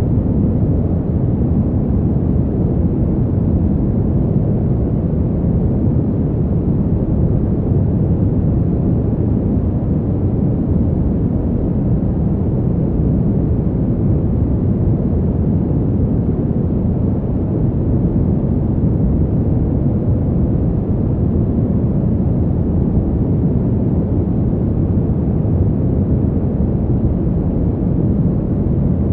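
Fan heater running steadily: an even, deep rush of air with little hiss and no changes in pitch or level.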